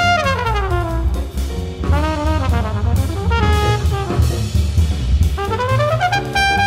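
Background jazz music with brass and a drum kit: a horn line slides down through the first second, plays short phrases, and climbs back up near the end to a long held note.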